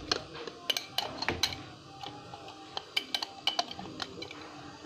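Irregular small clicks and clinks of cut-glass candelabra parts being handled and fitted together by hand.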